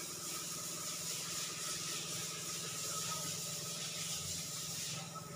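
A steady high hiss over a low steady hum; the hiss cuts off abruptly about five seconds in.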